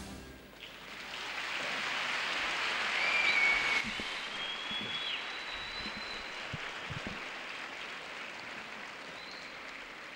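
Large audience applauding in a big hall, swelling over the first few seconds, then slowly dying away. A few short, high whistles sound over it as it peaks.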